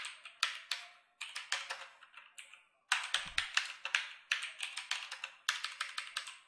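Zebronics Max Plus mechanical keyboard being typed on, a rapid string of loud, clear keystrokes. The typing breaks off briefly about a second in and again near three seconds in.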